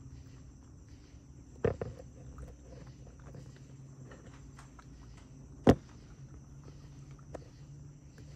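A raccoon eating and rummaging through food scraps on a cinder block: small clicks and scrapes, with two sharp knocks, one about two seconds in and a louder one just past the middle. Insects chirr steadily in the background.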